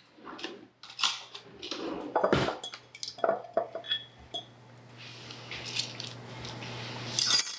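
Kitchen utensils clinking and knocking against dishes while toppings are put on a sandwich, in scattered short clicks, with a faint hiss building in the second half and a louder scrape near the end. A low steady hum runs underneath.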